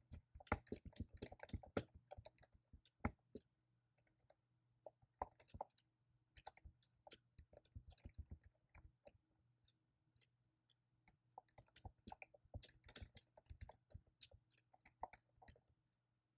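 Soft typing on a computer keyboard: quick runs of key clicks broken by short pauses.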